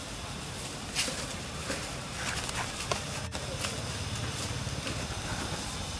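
Scattered light crackles and ticks from dry leaf litter over a steady outdoor hiss. A low handling rumble grows after about two seconds as the handheld camera moves.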